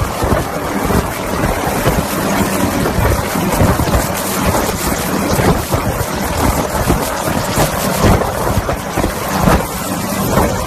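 Light helicopter hovering low overhead, its rotor and engine noise mixed with heavy wind buffeting on the microphone from the rotor downwash.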